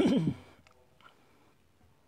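A short, loud burst right at the start, then quiet with a few faint clicks as a vinyl figure is handled and set down on a mirrored display stand.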